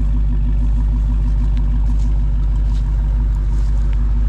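Dodge Charger Hellcat's supercharged V8 idling with a steady, even low rumble.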